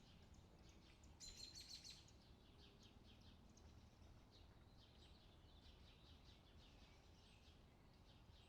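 Small birds chirping and twittering faintly and continuously, with a louder flurry of quick chirps about a second in.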